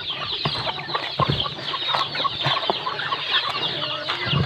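Chickens clucking and chirping in quick, overlapping calls, with the rustle of a hand mixing dry feed in a plastic basin.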